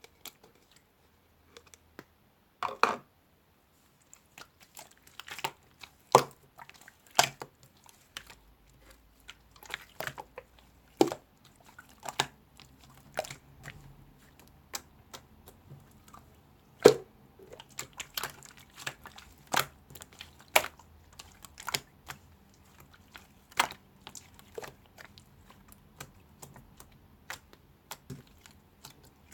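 Irregular sharp clicks and taps, a few much louder than the rest, over a faint low hum.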